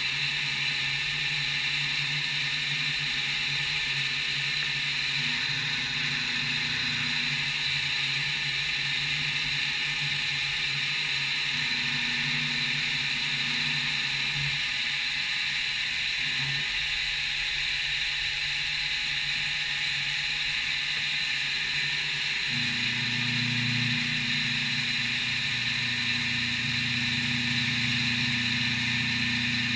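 CNC machine running a milling job: a steady high whine, with a lower hum that fades and returns, then steps up louder about three quarters of the way through.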